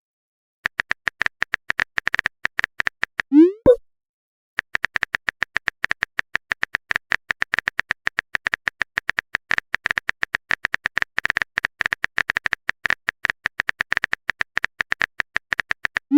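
Rapid clicks of a phone-keyboard typing sound effect. About three and a half seconds in they break off for a short rising 'bloop', like a message being sent, and the typing clicks start again about a second later.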